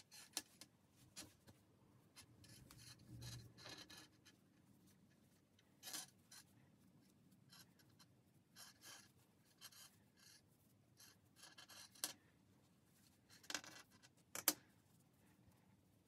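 Faint rustling and rubbing of hands working fibre toy stuffing into a knitted body piece and squeezing the stuffed knit, with a couple of sharp taps near the end.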